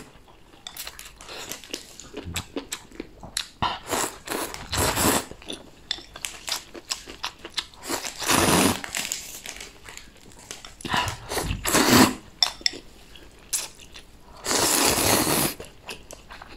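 A person eating rice noodles from a bowl held to the mouth, with quiet chewing and mouth clicks broken by several long, loud slurps, about four in all.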